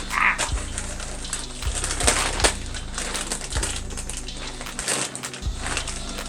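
A cardboard box and its packing being opened by hand: irregular crinkling, rustling and sharp crackles as the packaging is pulled apart.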